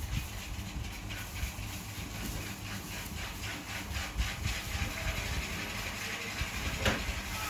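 Baby monkey feeding: quick, rhythmic smacking clicks, about four a second, over a steady hiss.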